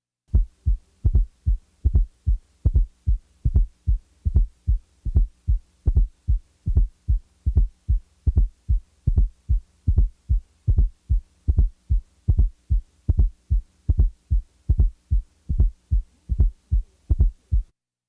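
Heart sounds: low thuds in a steady, even rhythm, with a fourth heart sound (S4, atrial gallop) just before the first sound, removed and then added back partway through. The S4 is the sign of a stiff, less compliant ventricle. A faint steady hum lies under the beats.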